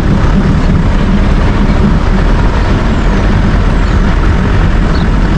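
Motor vehicle running on the road, a steady loud mix of engine and road noise with no break.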